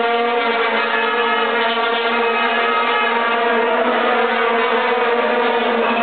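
Many plastic vuvuzelas blown together by a crowd of football fans, making a loud, steady drone on one note with many overtones.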